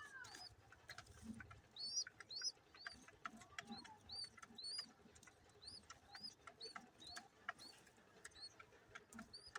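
Pigeon squabs begging: faint, high-pitched peeping chirps repeated about twice a second, with scattered soft clicks.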